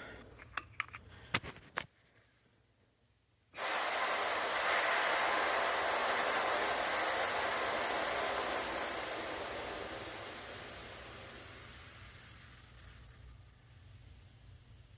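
Pressurised gas hissing out through a just-opened valve on refrigeration service hoses. The hiss starts suddenly, then fades away over about ten seconds as the pressure drops off. A few light clicks of the fittings being handled come before it.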